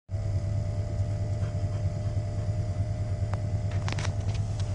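GMC Suburban's engine idling, heard from inside the cab as a steady low rumble, with a few sharp clicks about four seconds in.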